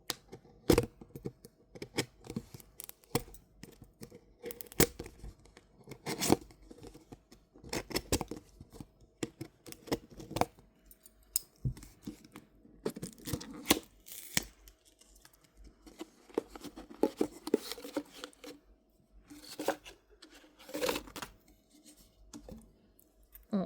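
Toy packaging being torn open and handled, with irregular tearing, crinkling and sharp clicks.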